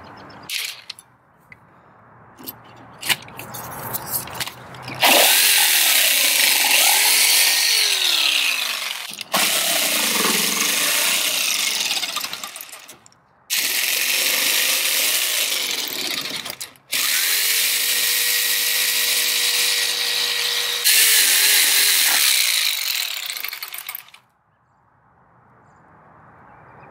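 Handheld power tool cutting through a sailboat's fiberglass hull skin in five runs of a few seconds each, with short pauses, its motor pitch dipping and recovering as it bears into the fiberglass. The hull is being opened up to remove a delaminated, wet section.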